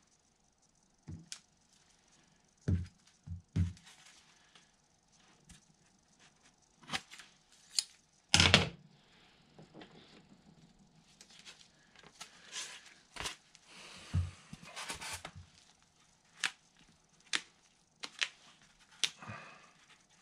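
Scattered light clicks and taps of objects being handled and set down on a workbench, with a few brief rustles and one louder thump about eight seconds in.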